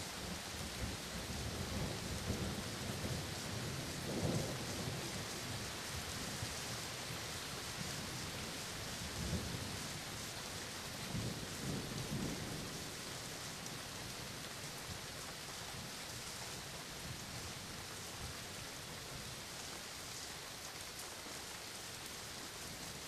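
Steady rain with a long roll of thunder. The rumble swells several times through the first half, most strongly about four seconds in and again around eleven to twelve seconds, then dies away, leaving the rain alone.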